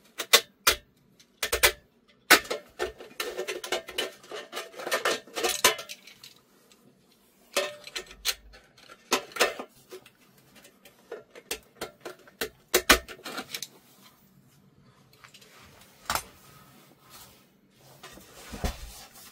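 The glued spider (cloth suspension) of an 18-inch loudspeaker being pulled and cut away from the cone and frame. It makes irregular crackling, scraping and sharp clicks, which grow sparser for a few seconds near the end.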